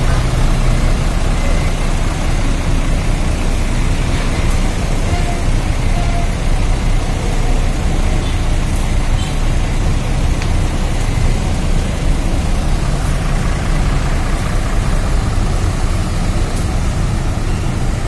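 Large bus engines idling at close range: a steady low rumble with traffic noise over it.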